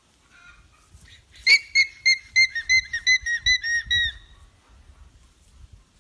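Alpaca alarm call: a rapid series of about ten shrill, whistle-like squeals, some four a second, starting about a second and a half in, the last one drawn out and falling away. The call signals danger.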